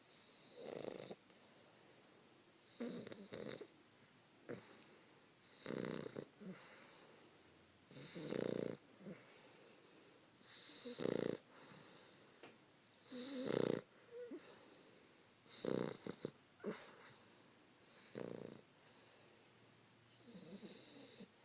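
A sleeping three-month-old English Bulldog puppy snoring, about nine soft snores at a steady pace of one every two and a half seconds, each with a raspy, hissing breath.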